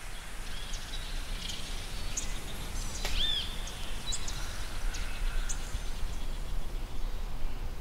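Forest ambience with scattered short bird chirps and calls over a steady low background noise, and one louder arched call a little after three seconds in.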